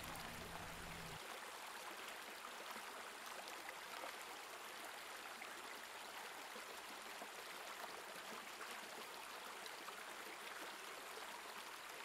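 Shallow stream flowing over rocks and pebbles: a steady, even rush of running water. A low hum underneath cuts off about a second in.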